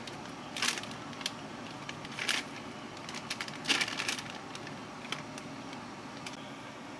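Thin plastic packaging crinkling as packs of fresh udon noodles are handled and the noodles are tipped out of their bag: three crackling bursts in the first four seconds, the last the longest. A steady low hum runs underneath.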